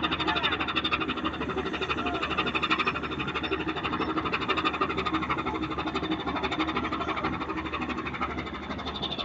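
Boat's marine diesel engine running steadily with a rapid, even beat, manoeuvring a cargo ship.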